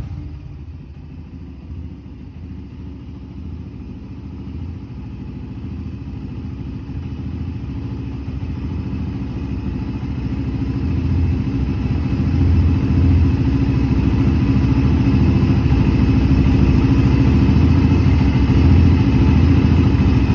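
Honda TRX300EX's single-cylinder four-stroke engine idling with a steady low beat. It grows gradually louder over the first dozen seconds, then holds steady.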